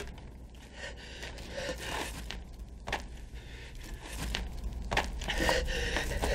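A man breathing hard, the breaths getting louder toward the end, with a few faint clicks.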